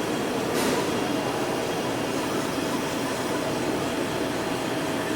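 Steady running noise of a wave solder machine. About half a second in there is a short hiss, and a faint steady whine runs on under the noise from then on.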